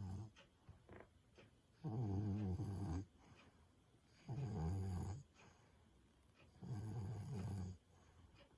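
Elderly, overweight domestic cat snoring in her sleep: three drawn-out, low buzzing snores about two and a half seconds apart, each lasting about a second, with the end of another right at the start.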